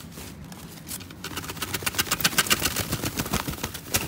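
Plastic packaging wrap crinkling and rustling as it is handled, a dense run of rapid crackles starting about a second in.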